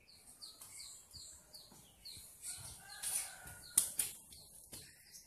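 A small bird chirping nearby, a quick series of short high notes that fall in pitch, about three a second, then more scattered. About two-thirds through, a metal spoon taps sharply against the mixing bowl, with a lighter tap a second later.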